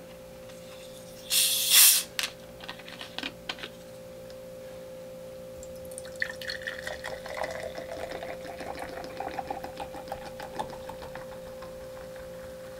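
A plastic soda bottle of orange Fanta being opened, with a short hiss of escaping gas about a second and a half in and a few clicks from the cap. From about six seconds in, the carbonated soda is poured into a glass, pouring and fizzing for several seconds.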